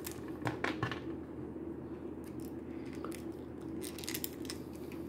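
Small plastic clicks and rubbing from an action figure's head being worked off its neck joint to swap in another head. A few clicks come near the start and more around three to four seconds in, over a faint steady hum.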